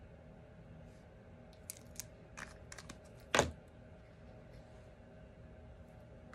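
A few light clicks of paper and card handling, then one louder knock about halfway through, as a plastic bottle of liquid glue is set down on the craft table. A faint steady hum runs underneath.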